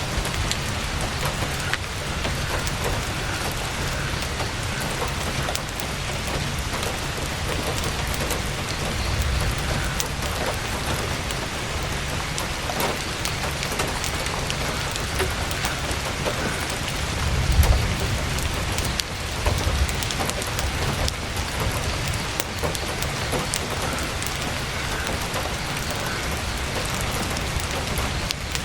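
Heavy rain drumming steadily on tent canvas, with scattered sharp drop ticks. A deep low rumble underneath swells briefly a little past halfway through and again just after.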